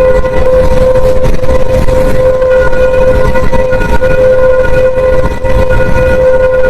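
Eerie space-sound audio presented as the sound of Pluto: a steady, unchanging droning tone with overtones over a low rumbling noise.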